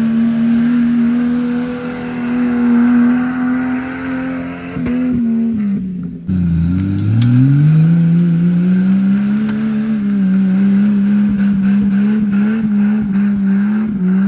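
Jeep engine revving hard under load on wooden saw-blade wheels, held at a high steady pitch, dropping sharply about six seconds in, then climbing back up and holding high again, with scattered clicks and clatter in the second half.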